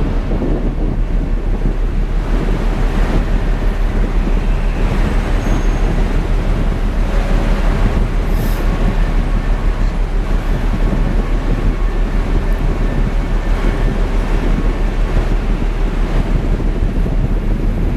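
Loud, steady low rumble with wind buffeting the microphone, as aboard a ship in a storm.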